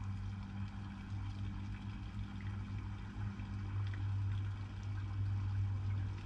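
A steady low hum with a faint wash of sea water around the rocks.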